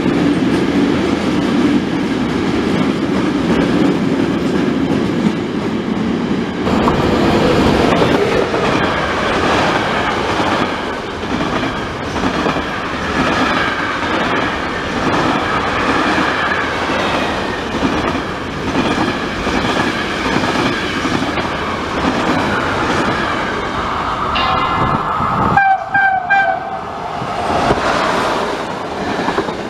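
Electric-hauled freight trains passing at speed close by, the wagons rumbling and clattering over the rails. Near the end an electric locomotive gives a short horn blast and passes with its coaches.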